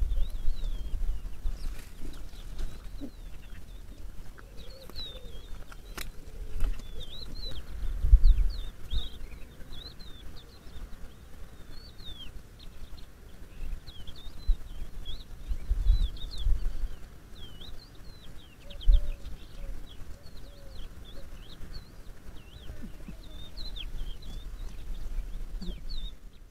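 Small birds chirping: many short, quick high notes repeating throughout, over a low rumble that swells a few times. A single sharp click about six seconds in.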